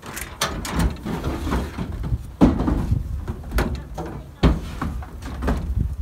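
Pickup truck tailgate being lowered and wooden beehive boxes handled on it: a series of knocks and thumps, the loudest about two and a half and four and a half seconds in.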